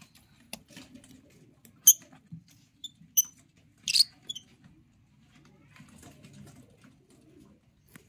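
Caged albino ringneck parakeets giving a few short, sharp, high-pitched calls, the loudest about two and four seconds in, over a low background murmur.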